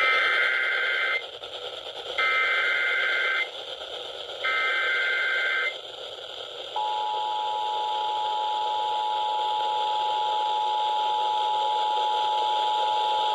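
Emergency Alert System activation for a severe thunderstorm warning, received over the radio with steady static hiss: three short bursts of warbling SAME header data, about a second apart, followed by the steady two-tone EAS attention signal, which starts about seven seconds in and holds.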